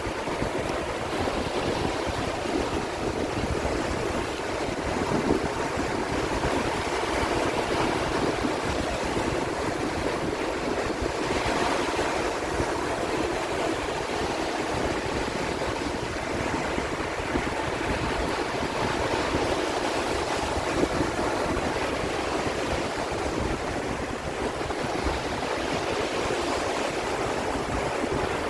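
Sea waves washing in a steady rush of surf, with a slightly stronger surge about halfway through.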